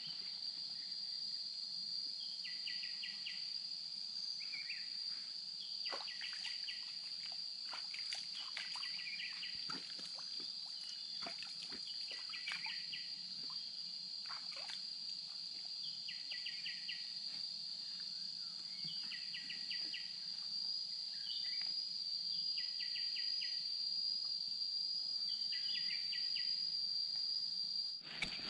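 Forest insects droning on one steady high note, with a short pulsed chirping call repeating about every three to four seconds. Scattered short clicks and rustles come mostly in the first half.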